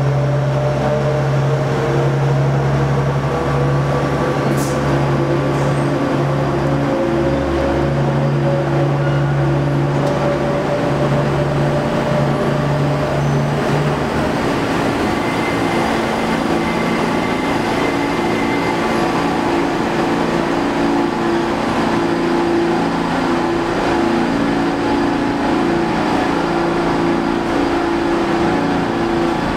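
Pullman-Standard R46 subway cars rolling slowly through a station: a steady rumble with a low hum and a faint whine that climbs slowly in pitch, the hum changing about halfway through.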